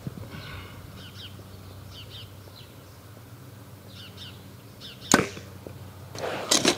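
Compound bow shot at close range: one sharp snap as the string is released about five seconds in, with the arrow striking the target almost at once. Faint bird chirps before it.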